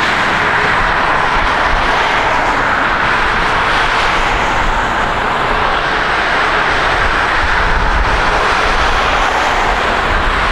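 Twin-engine widebody jet airliner at takeoff power, its engines giving a steady rushing roar through the takeoff roll, rotation and liftoff.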